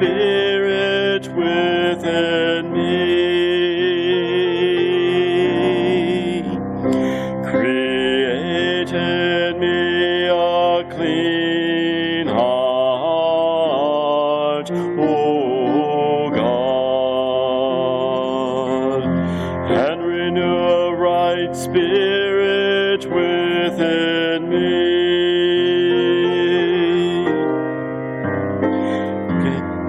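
A man singing a worship song, with instrumental accompaniment.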